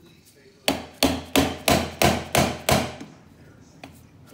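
Rubber mallet striking a rusty steel belt pulley: about seven quick blows, roughly three a second, then a pause of over a second before the blows start again at the end.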